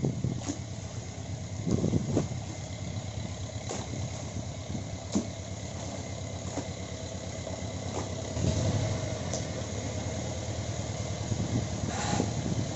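Longtail boat engine idling as the boat slows and comes alongside, a steady low drone with a couple of brief swells in loudness.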